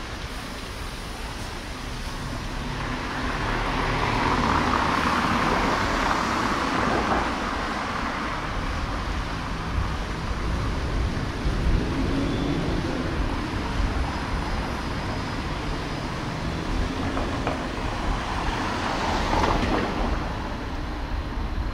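City street traffic noise: a steady hum of road traffic, with a car passing, swelling and fading a few seconds in, and another swell near the end.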